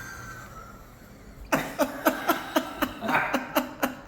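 A man laughing hard: a quick run of short "ha" bursts, about four a second, each dropping in pitch, starting about a second and a half in after a quieter stretch.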